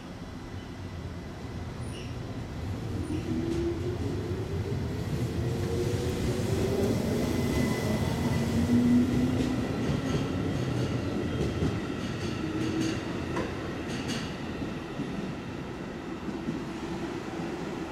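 JR Central 211 series electric train departing from the platform and accelerating away. Its motor and gear whine rises in pitch as it gathers speed, and wheels click over the rail joints as the cars pass. The sound is loudest about nine seconds in, then fades as the train draws off.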